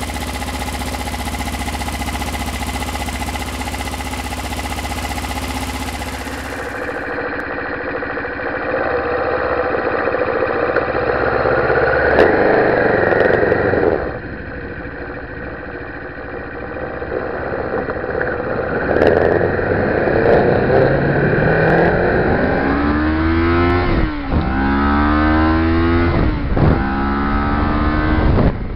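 Kawasaki Ninja motorcycle engine running steadily, then the bike pulling away and accelerating, its pitch rising through the gears in the last few seconds with a short drop at each shift.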